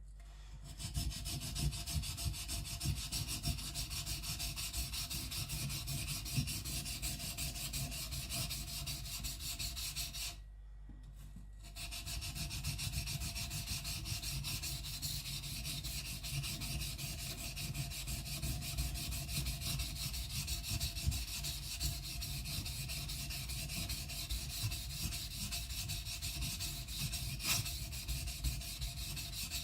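Steel kiridashi blade rubbed back and forth in rapid strokes on a wet coarse Naniwa Professional 400 whetstone, grinding the bevel down thin. The strokes stop briefly about a third of the way through, then carry on.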